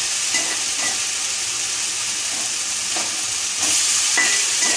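Boiled yam and potato cubes sizzling as they go into hot mustard oil and fried spice paste in a kadai. The steady sizzle gets louder about three and a half seconds in, as more cubes are added.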